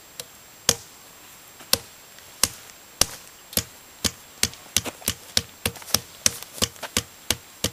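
A hand slapping a potato down onto the muzzle of a PVC potato-gun barrel, forcing it into the pipe. The sharp slaps come slowly at first, then speed up to about three a second.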